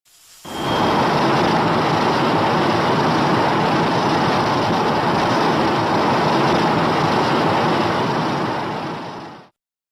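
Godzilla's atomic breath sound effect from one of the films: a loud, steady rushing noise that swells in within the first half-second, holds for about nine seconds, then tapers off near the end.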